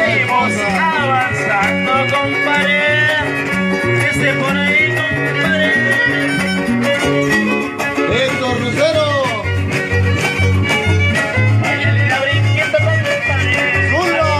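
Huasteco trio playing an instrumental passage of a huapango (son huasteco): the violin's sliding melody over the strummed jarana huasteca and the quinta huapanguera's bass notes, in a steady pulsing rhythm.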